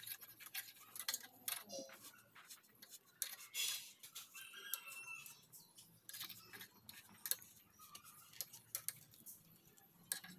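A screwdriver clicking and scraping against the metal end cap of a new chrome Yamaha RX100 silencer, in short irregular ticks and scrapes, with a louder scrape about three and a half seconds in.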